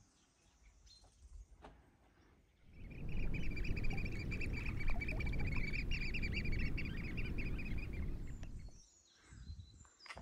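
A bird calling in a fast run of high-pitched notes over a low rumble of wind on the microphone, both starting about three seconds in and stopping abruptly near the end.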